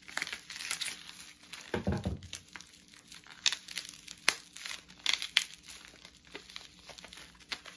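Plastic bubble wrap crinkling and crackling in irregular bursts as it is pulled off and handled, with one duller thump about two seconds in.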